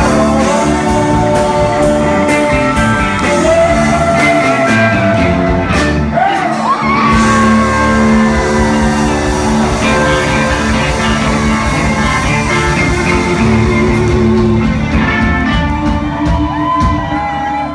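Live country band playing loudly in a club hall: electric guitar, pedal steel guitar and drums, with a male lead vocal and shouts from the crowd.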